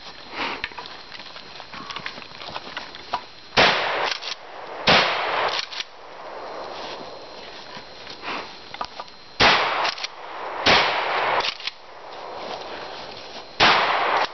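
Shotgun firing five shots over about ten seconds, in two pairs a little over a second apart and then a fifth near the end. Lighter clicks and knocks come between the shots.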